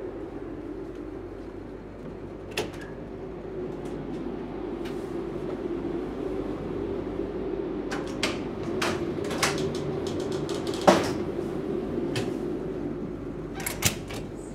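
Steady low hum of a passenger ferry's machinery, with scattered sharp clicks and knocks over it, the loudest about eleven seconds in, like doors or cupboard fittings being handled.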